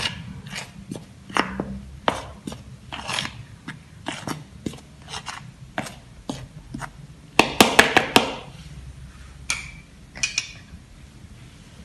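Small metal spoon scraping and clicking against a bowl while stirring dry flour mixed with salt, pepper and stock powder, a sequence of irregular light clicks. About seven and a half seconds in there is a quick run of louder, sharper clinks.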